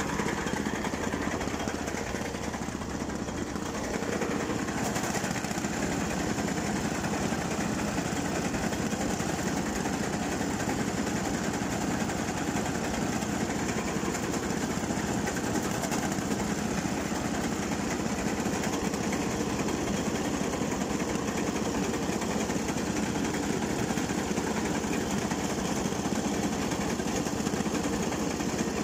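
Engine-driven branch chipper running steadily.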